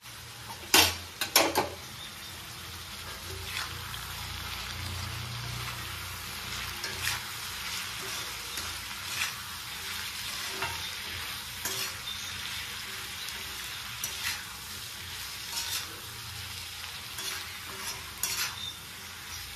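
Diced pumpkin and soaked moong dal sizzling steadily in a hot oiled wok, stirred with a metal spatula that scrapes and clatters against the pan every second or two. Two sharp knocks about a second in.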